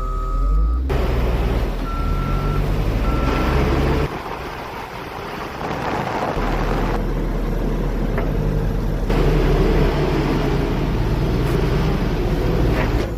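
Caterpillar 140M motor grader's diesel engine running, with its reversing alarm beeping in the first few seconds. The engine sound changes abruptly several times.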